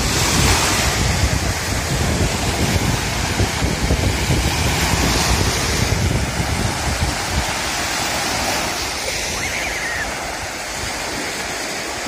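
Small waves breaking and washing up a sandy shore, the surf swelling every few seconds, with wind buffeting the microphone.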